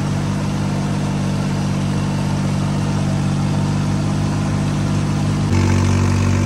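New Holland 3630 tractor engine running steadily under load, pulling an 8-foot rotavator through a flooded paddy field at about 2000 rpm. The exhaust is very loud, which the driver blames on the silencer. About five and a half seconds in, the sound steps up slightly louder with a changed pitch.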